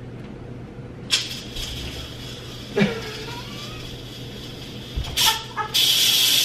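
Instant Pot electric pressure cooker's steam release valve pushed open for a quick release: a loud hiss of venting steam starts near the end and keeps going.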